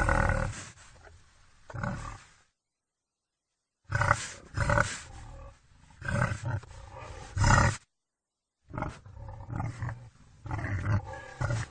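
Wild boar giving a series of harsh, loud calls, each under a second long, in three groups separated by two short stretches of dead silence.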